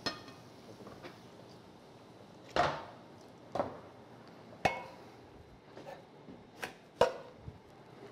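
Cooking utensils knocking against pots and pans: about six separate sharp knocks spread out, one near the middle ringing briefly.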